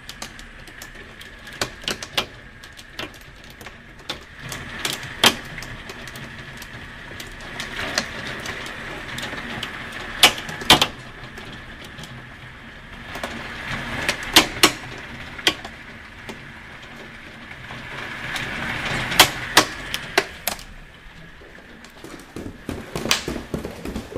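Hailstorm: hailstones striking hard surfaces with sharp, irregular cracks over a steady hiss of falling hail and rain. The hiss swells and eases three times.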